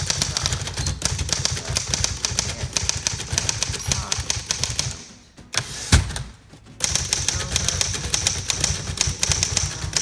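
1931 Royal 10 standard typewriter being typed on at speed, a rapid run of keystrokes with the type bars striking the platen. After a short lull there is one loud clack about six seconds in as the carriage is returned for a new line, and then the rapid typing resumes.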